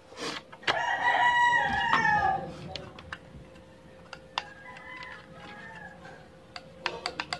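A rooster crows twice: a long, loud call about a second in that drops in pitch at its end, and a fainter one around five seconds in. Near the end a mini sewing machine starts stitching with rapid, even clicks, about five a second.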